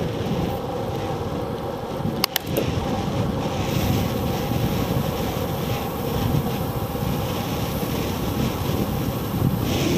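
Wind buffeting a handlebar-mounted camera's microphone, mixed with tyre and road noise, as a bicycle rolls fast downhill at about 20 to 27 mph. A couple of sharp clicks come a little over two seconds in.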